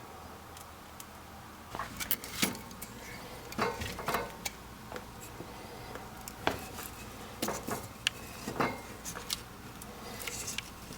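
Irregular clinks and knocks of small hard objects being handled, starting about two seconds in, some with a short ring.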